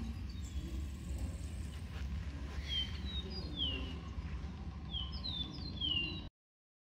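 Bird calls, likely from a museum wildlife display: a series of short chirps, each sliding downward in pitch, starting about three seconds in, over a low steady hum. The sound cuts off suddenly near the end.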